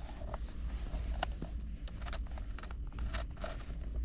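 Screwdriver clicking and scraping against the airbag-retaining spring and clips of a BMW E46 steering wheel, a string of small sharp ticks over a steady low hum.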